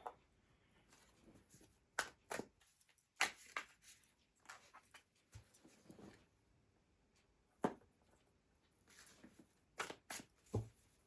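Tarot cards and rune pieces handled on a table: soft rustling with a handful of separate sharp clicks and taps, a loud single tap a little past the middle and a quick cluster of taps near the end.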